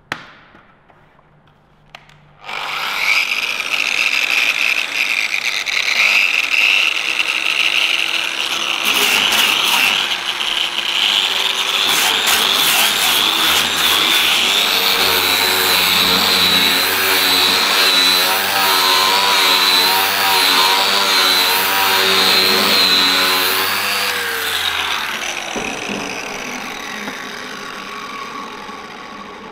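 Electric variable-speed sander with a large sanding pad grinding down soft-solder (tin) body filler on a steel VW bus door panel, rough-levelling the freshly tinned seam. It starts about two seconds in, runs steadily with the pad on the metal, then winds down near the end.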